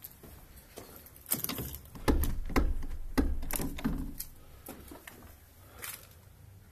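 A cluster of clicks, knocks and low bumps lasting about three seconds, with one more click near the end.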